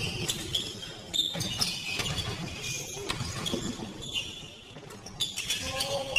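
Basketball shoes squeaking on a sports-hall floor as players run and cut, repeated short high squeaks, with scattered thuds of the ball bouncing and footfalls in the large hall.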